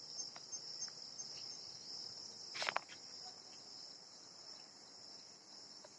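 Crickets chirping in a steady, continuous high trill. A brief sharp sound cuts in once, about two and a half seconds in.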